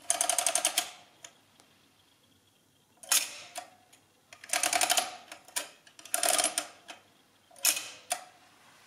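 Summira 7 mechanical adding machine being worked by hand: digit slides pulled down by finger in four short bursts of rapid ratcheting clicks as the register wheels turn and carry over, then two single sharp clacks near the end as the input clearing bar is pressed.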